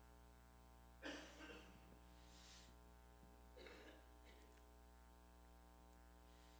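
Near silence: room tone with a steady electrical hum, broken by two brief soft noises about a second in and again about three and a half seconds in.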